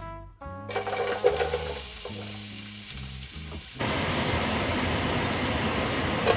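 Diced onion sizzling in hot oil in a frying pan, getting louder about four seconds in.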